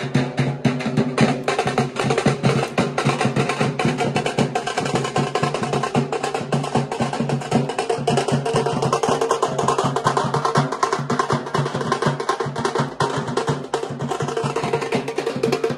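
Drummers playing a fast rhythm on large hand-carried drums, with a dense run of sharp, rapid strokes over a steady ringing drone.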